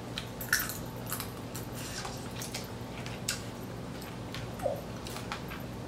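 Scattered small clicks and cracks of boiled blue crab shells being broken open and eaten by hand, over a steady low hum, with one brief short whine about four and a half seconds in.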